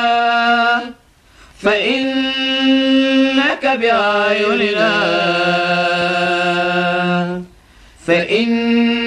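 Quran recitation chanted in a drawn-out melodic style: long held vocal notes that glide between pitches, with two short pauses, one about a second in and one near the end.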